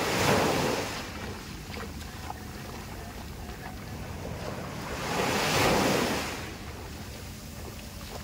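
Small sea waves breaking on a sandy shore: two rushing crashes, one right at the start and another about five and a half seconds in, with quieter surf wash between. A steady low wind rumble on the microphone runs underneath.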